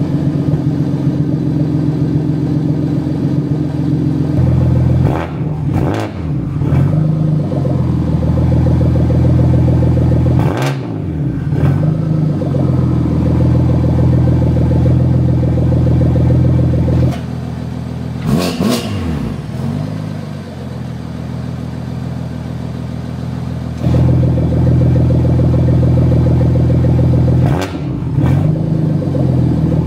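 BMW F80 M3's S55 twin-turbo inline-six running at the exhaust, with the revs rising and falling briefly a few times. Between the revs it idles, dropping to a lower, quieter idle for several seconds in the middle before coming back up.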